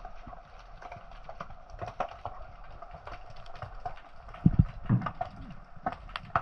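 Underwater sound picked up by the diver's camera: irregular clicks and knocks over a faint hiss, with two stronger low thumps about four and a half and five seconds in.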